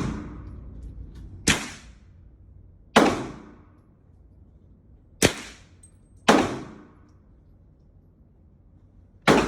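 Gunshots on a shooting range: five single shots at uneven intervals, each sharp crack followed by a short echoing tail.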